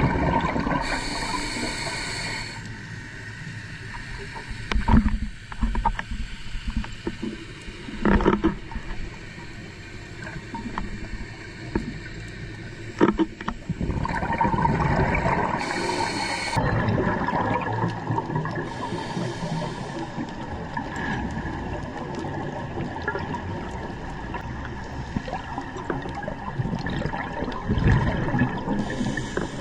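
Underwater sound of scuba diving: a diver's regulator breathing, with a brief hiss now and then and the rumble of exhaled bubbles.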